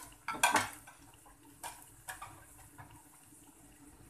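A utensil clatters against a frying pan about half a second in, then a few lighter clicks, over the faint sizzle of a flour-coated chicken wing deep-frying in hot oil.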